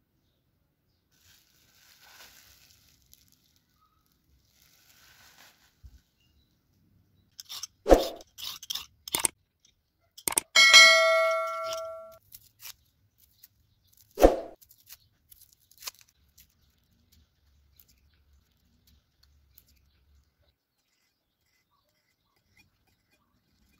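Sparse kitchen food-prep noises, a few sharp clicks and knocks of a vegetable peeler and knife on a wooden cutting board. About ten seconds in, a bright bell-like ding rings for over a second: a subscribe-button bell chime sound effect.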